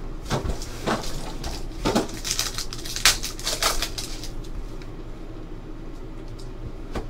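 Foil wrapper of a Panini Select basketball card pack crinkling and tearing open, with a dense crackle about three seconds in, then quieter rustling as the cards are pulled out and handled.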